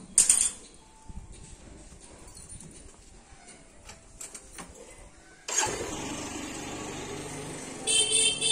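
A sharp knock, then about halfway through a motor engine starts up suddenly and runs steadily, with a brief shrill sound near the end.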